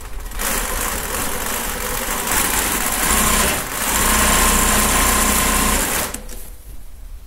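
Jack 20U industrial direct-drive sewing machine running and stitching through a fabric strip. It stops briefly about halfway, then runs louder with a steady motor whine before stopping abruptly about six seconds in.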